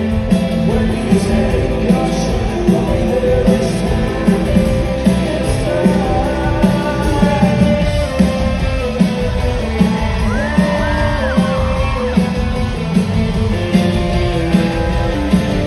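Rock band playing live, with electric guitar, a steady drum beat and a sung vocal line, heard from within the audience.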